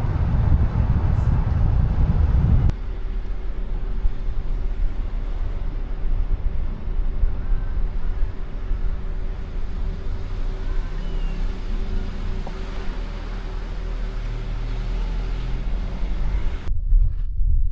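Steady low rumble of vehicle and road noise. It changes abruptly about three seconds in and again a second before the end.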